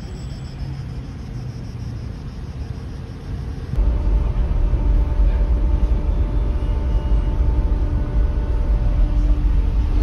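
Steady rumble of a car ferry under way. About four seconds in it becomes a much louder, deeper rumble with a steady hum, as heard down on the enclosed vehicle deck.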